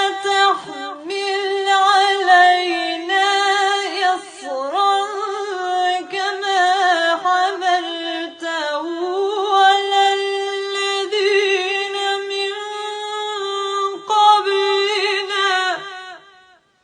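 A woman's voice reciting the Quran in slow melodic chant, unaccompanied, holding long drawn-out notes with ornamented turns between them, then trailing off near the end.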